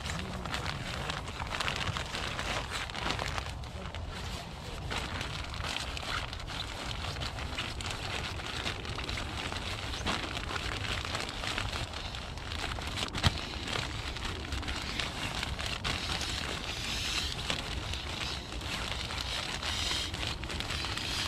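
An inflatable sleeping mat being folded and pressed down to squeeze the air out, its fabric rustling and crinkling steadily with many small irregular clicks, and one sharper click about 13 seconds in.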